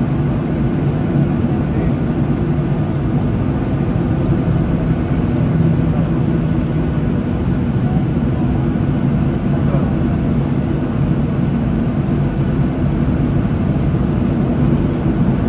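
Cabin noise of a Boeing 737-800 taxiing, heard from inside over the wing: its CFM56-7B turbofans run at low taxi power as a steady low rumble with a few steady tones.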